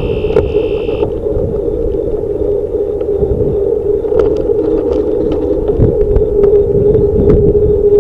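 Wind rumbling on a handlebar-mounted camera's microphone as a bicycle rides alongside passing traffic, with a steady hum throughout and scattered knocks and rattles from the bike going over bumps. A high steady tone cuts off about a second in.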